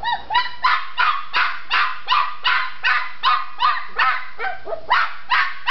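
Red tri-colour Australian Shepherd puppy yapping: a rapid, steady string of high-pitched barks, about three a second. It is demand barking to be let out of her pen.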